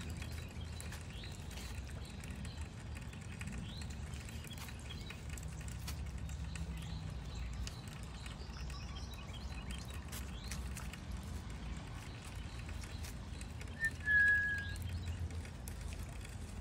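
Outdoor ambience in light rain, with a steady low rumble and faint scattered bird chirps. About fourteen seconds in comes one short, clear whistle-like call, the loudest sound.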